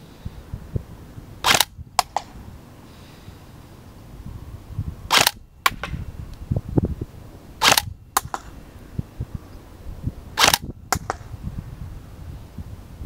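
Tokyo Marui SCAR-H airsoft electric rifle firing four single shots a few seconds apart, each shot followed about half a second later by a fainter click. Wind buffets the microphone underneath.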